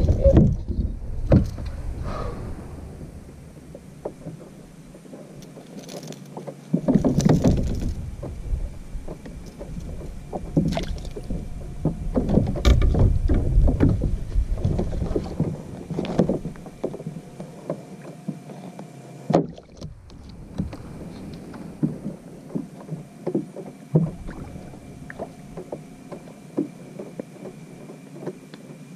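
Irregular knocks, rattles and water splashes from handling a landing net and a large spotted seatrout aboard a plastic fishing kayak, loudest near the start and in clusters later on, over a low rumble that comes and goes.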